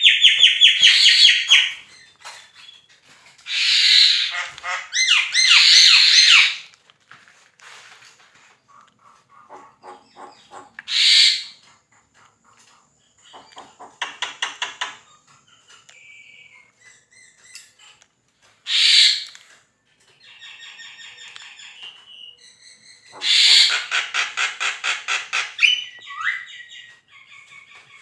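Javan myna calling in loud, harsh bursts, several of them rapid rattles of repeated notes, mixed with short whistles and quieter chatter between the bursts.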